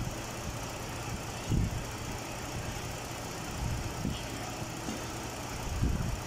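Mazda CX-9 engine idling steadily and quietly, heard close up in the open engine bay; it is running smoothly, with so little noise that the owner says almost nothing can be heard. A few short low thumps come through, about a second and a half in and near the end.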